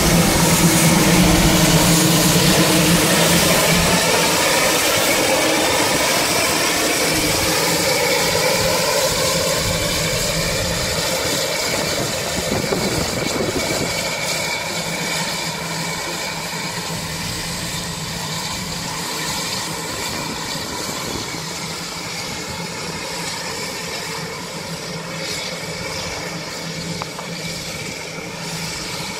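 Narrow-gauge steam locomotive running, loud at first and then fading steadily as it moves away down the track.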